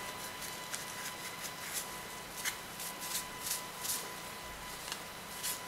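A cloth wipe rubbed and rustled over a Kirby vacuum motor armature as it is cleaned and handled: a string of short, irregular scuffing strokes.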